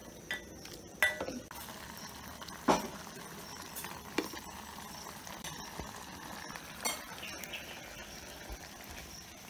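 Several sharp clinks and knocks of a ladle against clay cooking pots and a ceramic bowl as curry is stirred and dished up, over a steady high drone of insects.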